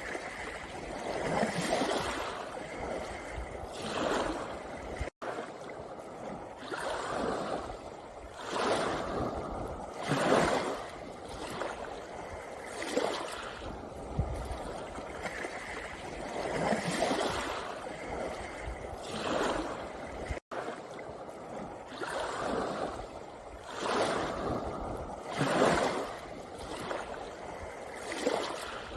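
Small sea waves washing up and back over a pebble beach, each surge swelling and fading every two to three seconds. The sound cuts out for an instant twice.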